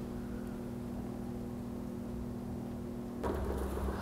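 Steady low machine hum with a few steady pitched tones. About three seconds in it changes abruptly to a louder low rumble.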